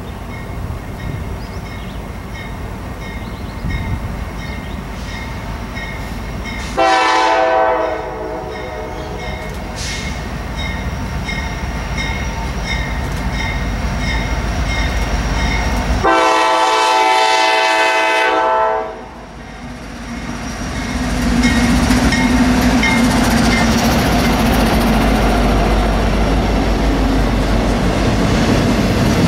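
A freight train's diesel locomotive horn sounds twice, a short blast about seven seconds in and a longer one around sixteen seconds, over the repeated ding of a grade-crossing bell. From about twenty-one seconds the double-stack intermodal train is passing, with a steady rumble of wheels on rail.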